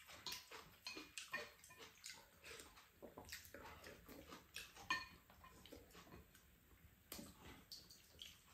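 Quiet eating sounds: spoons and chopsticks tapping and scraping against ceramic bowls and a frying pan, a scattered series of light clicks, a few with a short ring, mixed with sipping and chewing.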